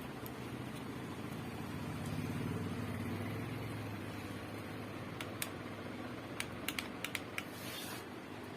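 Steady low hum with a scatter of sharp clicks in the second half and a short hiss near the end, from handling and connecting up a repaired DTH set-top box to switch it on for a sound test.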